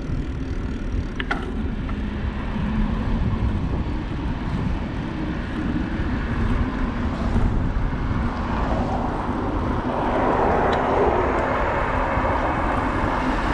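Wind rushing over the microphone and bicycle tyres rolling on the road while riding: a continuous rumbling noise that grows louder and brighter about two-thirds of the way through.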